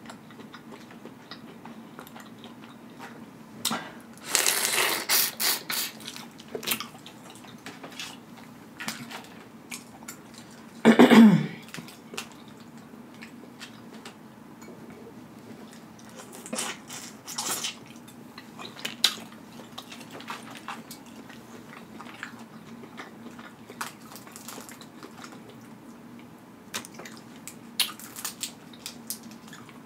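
Boiled crawfish being peeled by hand: scattered shell cracks, snaps and wet squishes, with a denser stretch of crackling about four to six seconds in. The loudest sound is a short vocal noise with a steeply falling pitch about eleven seconds in.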